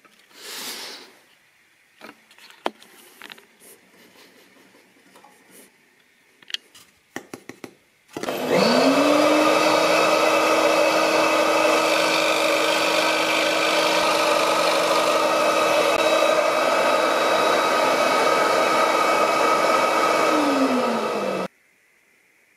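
A Proxxon scroll saw's motor spins up about eight seconds in, then runs at a steady pitch while its reciprocating blade cuts through a thin board. Near the end it winds down and cuts off. A few light clicks and knocks come before it starts.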